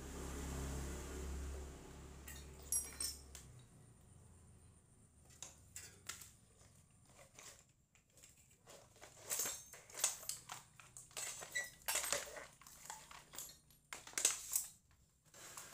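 Faint, irregular clicks, knocks and clatters of hard objects being handled and set down, with a short swell of low rumble at the start.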